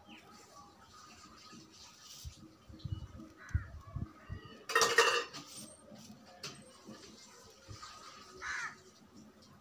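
Light handling and knocking sounds as nylon cord is threaded through the strings of a charpai being hand-woven, with one loud clatter about five seconds in.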